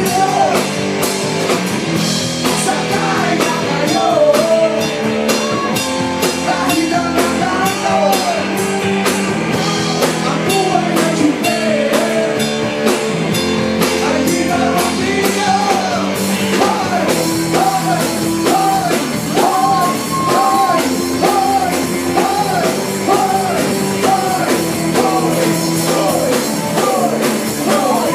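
A rock song played by a band, with a singer's voice carrying a melody of short repeated phrases over a steady beat.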